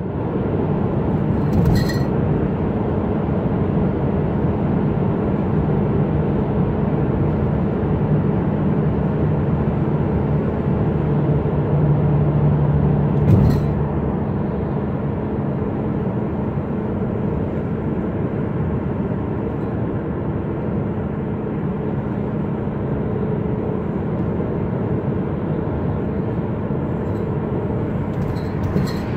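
Steady road and engine noise of a car driving at highway speed, heard from inside the cabin, with a low hum that eases a little about halfway through. Two brief clicks, one near the start and one about halfway.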